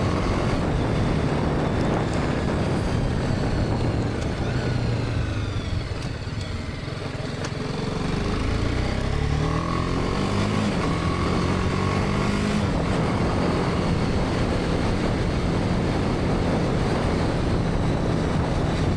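BMW G310R's single-cylinder engine running under way. It eases off about six seconds in, then accelerates with rising pitch and settles back into a steady cruise.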